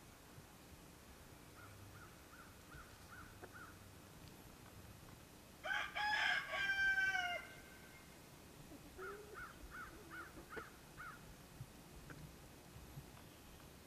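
A rooster crows once, lasting about a second and a half and ending on a falling note. Before and after it, the flock gives runs of short, evenly spaced high calls.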